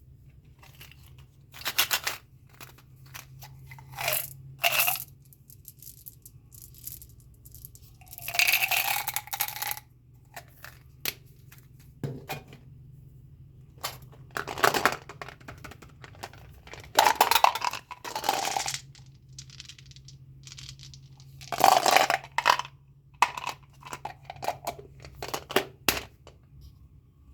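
Candy and bubble gum packaging being handled and torn open: short, irregular bursts of tearing and crinkling with sharp clicks and taps between them.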